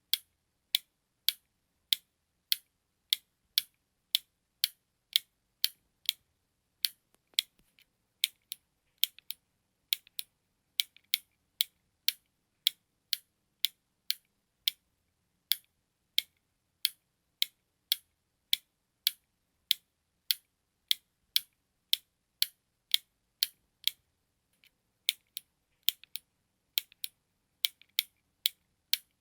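Button clicks repeating at a steady pace, a little under two a second, each short and sharp with silence between; a few come as quick double clicks.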